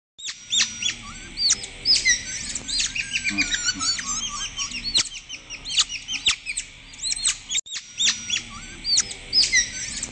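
A dense chorus of high-pitched chirps and short whistles from tropical forest animals, many overlapping and rising or falling quickly. The sound breaks off in a brief dropout about three-quarters of the way through, then carries on.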